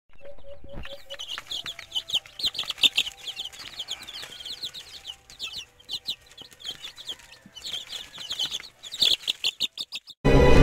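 A flock of Rhode Island Red and native chicken chicks peeping, many short high peeps in quick runs, with scattered light clicks. Loud music cuts in abruptly at the very end.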